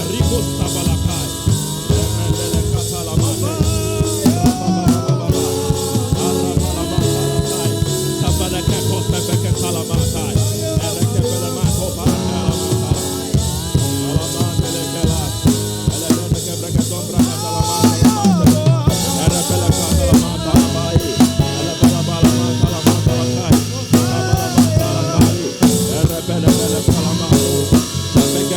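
Instrumental music with a drum kit keeping a steady beat under held pitched notes; the drum hits come through more sharply in the second half.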